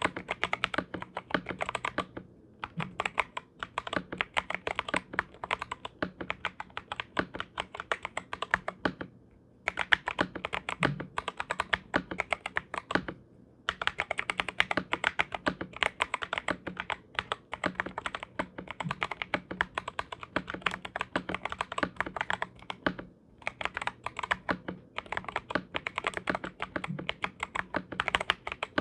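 Continuous fast typing on a 65% mechanical keyboard with lubed and filmed Kailh Box Royal tactile switches and PBT keycaps, dense runs of keystrokes broken by a few short pauses.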